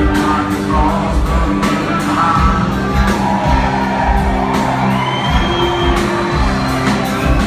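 Live country band playing through a concert hall's PA, with drums keeping a steady beat under sustained guitar and keyboard lines, and a few whoops and shouts from the audience.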